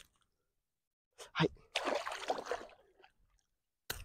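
A man's short grunt about a second and a half in, followed by a breathy sigh lasting most of a second, the sounds of effort while pulling a spiny catfish out of a gill net.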